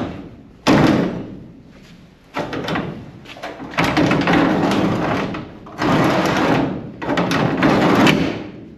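Renault Estafette's sliding side door being hung and run along its track: a sharp metal knock about a second in, then several long rolling, rumbling runs of the door along its runner, each lasting a second or so.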